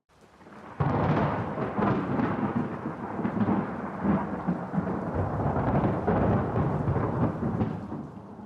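A thunder peal: a sudden crack about a second in, then a long, uneven rumble that fades away near the end.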